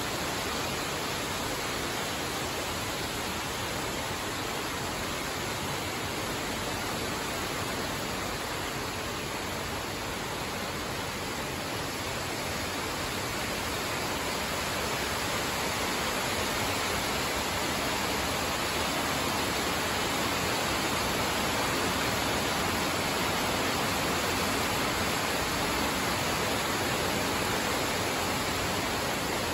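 Heavy monsoon downpour: a steady hiss of rain falling on the trees, growing a little louder about halfway through.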